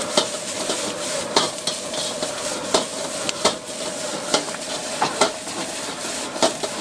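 Metal ladle scraping and clanking against a steel wok while stir-frying noodles and greens, with a steady sizzle. There is a sharp clank about once a second over a steady hum.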